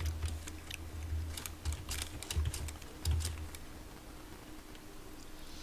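Irregular computer keyboard clicks with a few dull low thumps. The clicking thins out after about three and a half seconds.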